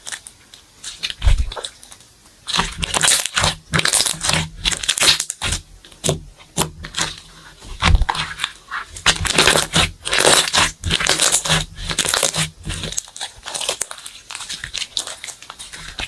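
Hands squeezing and stretching slime: a run of irregular crackles and pops, sparse for the first couple of seconds, dense through the middle and thinning out near the end.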